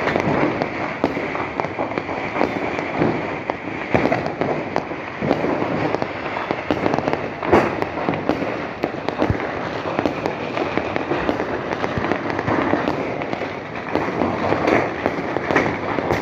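Fireworks going off without pause: a dense barrage of pops and bangs, with louder booms about four and about seven and a half seconds in.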